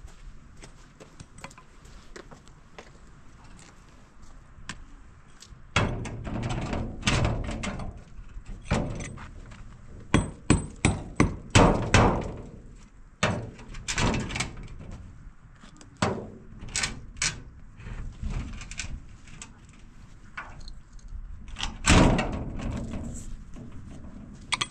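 Hammer strikes, irregular and spaced out, with a quick run of about six blows near the middle.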